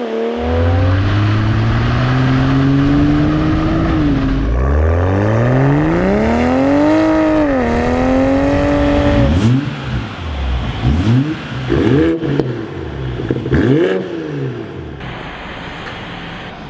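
BMW 540i with a tuned aftermarket exhaust revving. The engine note climbs in pitch and drops back twice, then gives about four short throttle blips, and the level eases off near the end.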